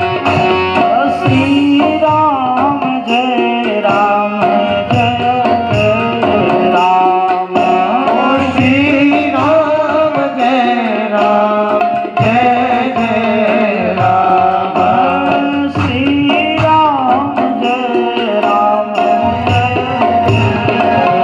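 Indian devotional music interlude: tabla playing a steady rhythm under a sustained melodic accompaniment.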